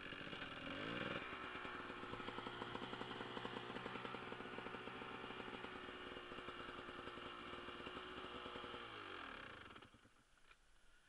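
Dirt bike engine revving up about a second in and held at a steady high speed, then winding down and cutting out about ten seconds in.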